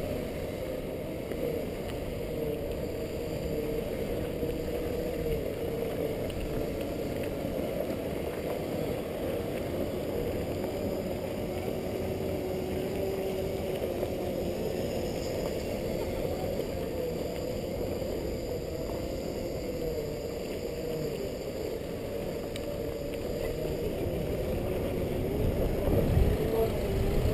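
Segway's electric drive whining steadily as it rolls along, its single tone wavering slightly up and down with speed, over a low rumble that grows louder near the end.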